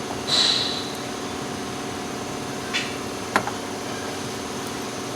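Steady mechanical hum with a few even tones, as from a running fan or machine, with a short hiss about half a second in and a sharp click a little after the middle.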